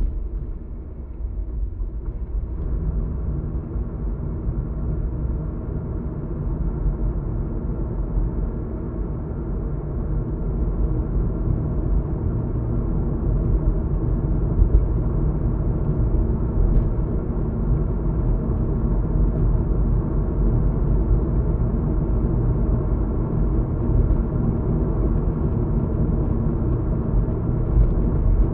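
Road noise inside a moving car: a steady low rumble of tyres and engine, growing a little louder over the first ten seconds and then holding steady.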